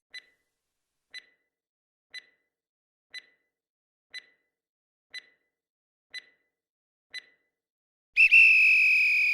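Quiz countdown timer: eight short electronic ticks, one a second, then about eight seconds in a loud steady electronic buzzer tone signalling that time is up.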